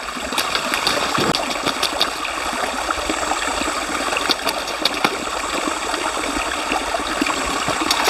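Shallow mountain stream running and trickling over rocks, a steady rush of water with a few faint clicks.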